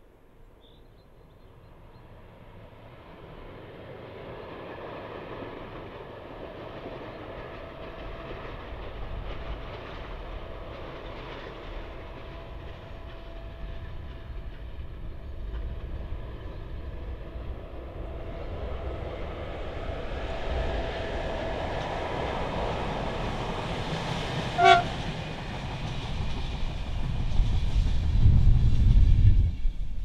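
HŽ class 1141 electric locomotive hauling a passenger train, approaching with a steadily growing rumble and hum. A single short horn toot comes about 25 s in, and the low rumble is loudest near the end as the train draws close.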